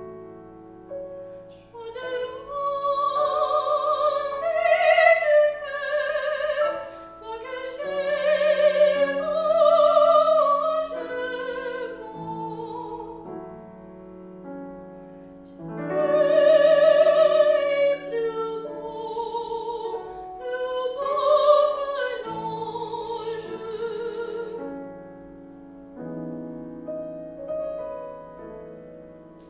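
Operatic singer performing a classical piece with a wide vibrato, accompanied by piano. There are two long sung phrases with a short piano-only stretch between them, and the piano carries on alone near the end.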